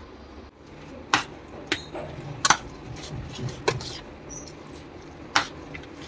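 A spoon clinking against a stainless steel mixing bowl while stirring paneer and chopped vegetables: about five sharp clinks at uneven intervals.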